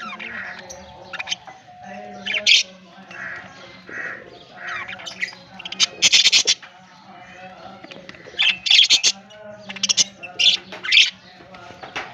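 Baby budgerigar chicks squawking: several loud, short, harsh calls in scattered bursts, with softer chirps between them.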